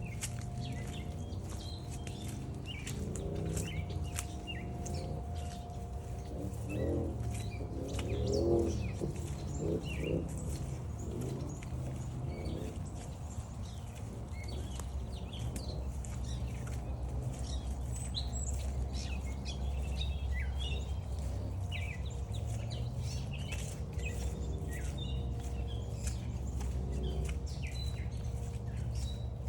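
Several songbirds chirping and singing in a mixed chorus throughout, over a steady low rumble.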